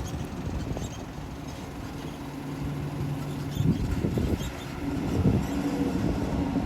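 Volvo EC210D excavator's diesel engine running steadily, its pitch stepping up a little over halfway through as it works harder, with a few knocks and rattles around the middle.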